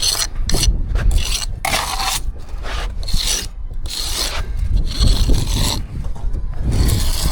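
About ten short, irregular scraping strokes of a hand tool working mortar on brickwork, over a steady low rumble.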